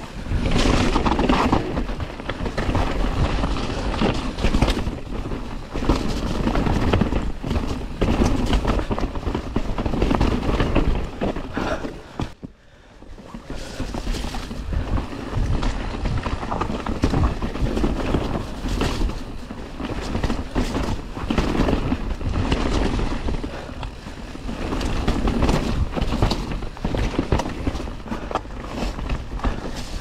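Mountain bike ridden down a wet dirt trail: wind noise on the camera mic with tyre rumble and the bike rattling and knocking over bumps, easing briefly about twelve seconds in.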